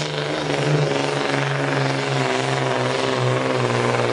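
DAF 95 pulling truck's diesel engine running flat out under full load as it drags the weight sled, a loud, steady drone whose pitch wavers only slightly.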